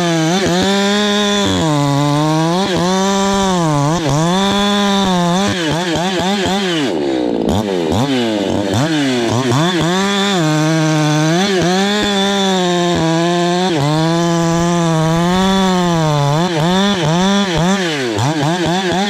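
Ported Echo CS-620P two-stroke chainsaw running at high revs while cutting white oak, its pitch sagging under load and picking back up every second or two. About seven seconds in the revs drop off sharply and climb back, and near the end the pitch falls and wavers.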